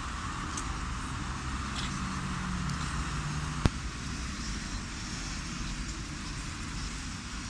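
Steady road-traffic noise from passing cars on a wet street, with a low engine hum for a couple of seconds. A single sharp click comes about three and a half seconds in.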